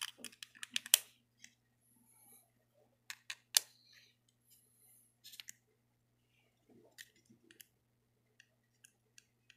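Sharp clicks and light rattles of small plastic model railway hopper car parts being handled and pressed together. The clicks come in clusters, loudest at the start and about three and a half seconds in, with a few single ticks near the end.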